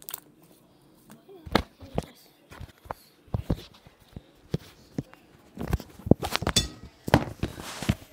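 Irregular clicks, taps and knocks of a hand handling things right against the phone's microphone, growing denser with a short rustling hiss near the end.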